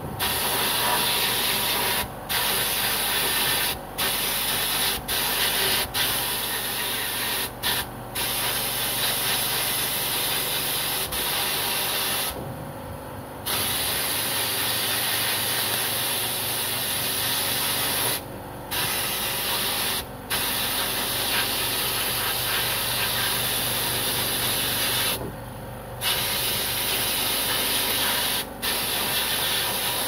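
Blast-cabinet air gun spraying abrasive media onto a two-stroke crankshaft web to clean it: a loud, steady hiss that stops briefly about ten times as the trigger is let off, with longer breaks about 12 and 25 seconds in.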